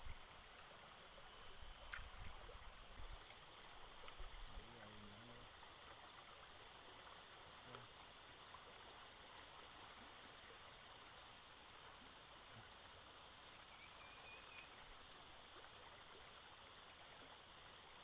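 Insects calling in a steady, unbroken high-pitched drone, over a faint even background hiss.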